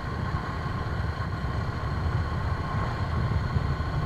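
Motorcycle engine running at a steady speed while riding, with wind rumbling on the microphone.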